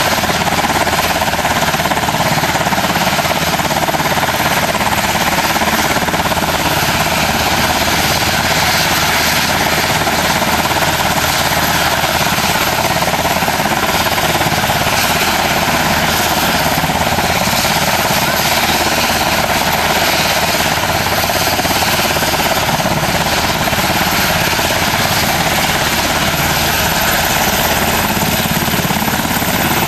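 UH-60 Black Hawk helicopter running on the ground, its twin T700 turboshaft engines giving a loud steady whine over the rapid chop of the turning main rotor.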